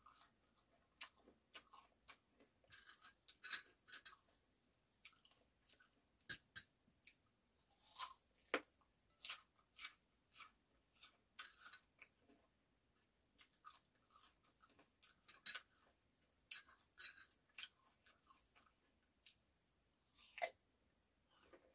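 Chewing cut persimmon chunks, with irregular short crunches and mouth clicks scattered through.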